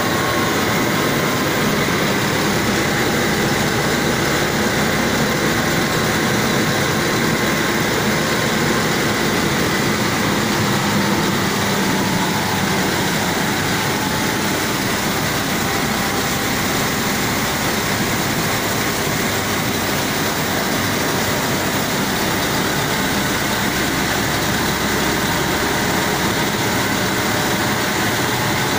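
Belt-driven rice mill machinery running steadily while milling dried paddy into rice, a loud continuous mechanical din with no pauses.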